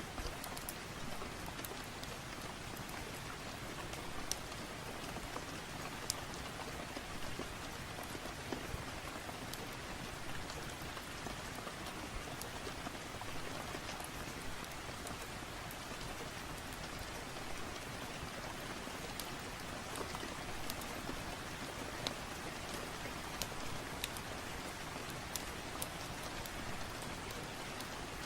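Steady rain hiss with scattered sharp crackles every second or two from a fire.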